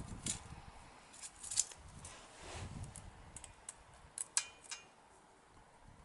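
Faint, scattered light metallic clicks and ticks of a feeler gauge set being handled, its steel blades tried in the tappet gap between the rocker adjuster screw and valve stem of a Yamaha XS650 engine while checking valve clearance. A few sharper ticks stand out, about a second and a half in and around four seconds in.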